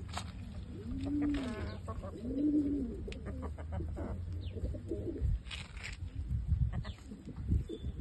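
A pigeon cooing three times in the first three seconds, each coo a short low rise and fall, followed by scattered low bumps and scuffs.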